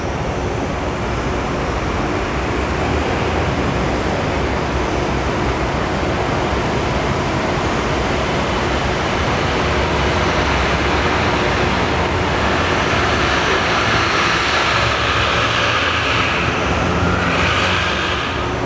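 Steady roar of city traffic, with a louder vehicle passing from about two-thirds of the way through, carrying a whine that fades just before the end.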